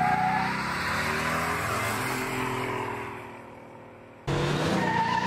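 1969 Buick GS 400's V8 revving hard as the car launches with its rear tyres spinning and smoking, fading as it pulls away. About four seconds in, another Buick burnout starts with a steady, high tyre squeal over the engine.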